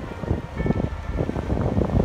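Wind buffeting the microphone in uneven low rumbles and thumps, over the wash of ocean surf.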